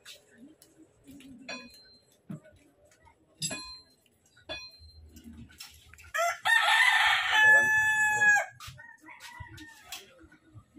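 A rooster crows once, loudly, about six seconds in: a rising start, then a long held note that trails off. A few sharp clicks and taps come before it.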